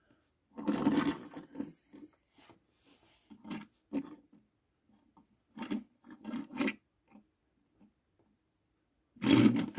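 Mattel die-cast Lightning McQueen toy cars being slid and rolled by hand across a wood-grain surface: rubbing and scraping in several short bursts, the longest about a second in.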